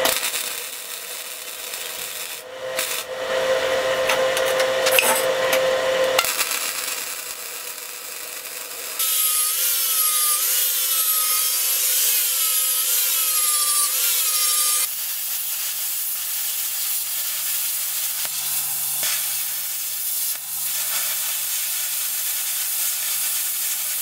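Shop metalwork on steel square tubing. First a wire-feed welder crackles as it welds the frame. From about 9 s to 15 s an angle grinder with a flap disc runs, its pitch dipping and recovering again and again as it is pressed into the steel. For the last nine seconds a plasma cutter cuts small caps from steel plate over a steady low hum.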